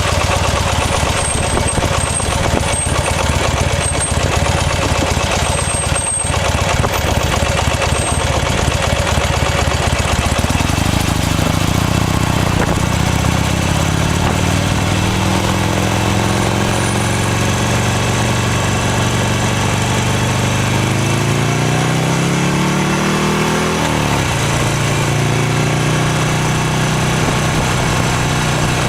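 Buell XB9S Lightning's air-cooled V-twin engine, low and steady at first, then pulling away from about a third in with its pitch rising through the gears. It climbs to a peak about two-thirds through, drops sharply, then runs steady.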